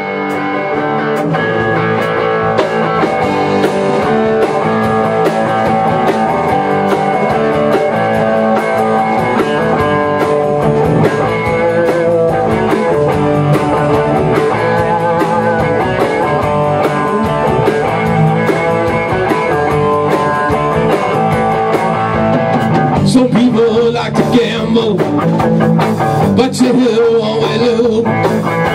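A live rock band of electric guitars, bass guitar and drum kit playing a blues-rock tune. About 23 seconds in the playing gets harder, with sharper drum and cymbal hits.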